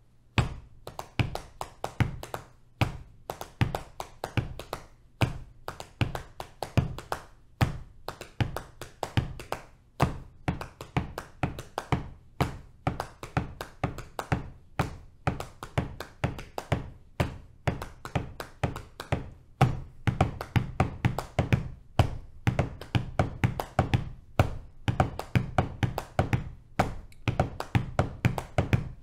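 Body percussion: hands patting the thighs in a five-against-four-against-three polyrhythm, a dense run of taps and low thuds starting about half a second in.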